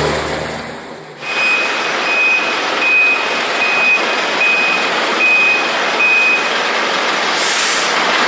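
Fire service rescue tender's reversing alarm beeping about seven times, one steady note every two-thirds of a second or so, over the truck's engine noise as it backs into the station bay. Near the end comes a short hiss of air brakes.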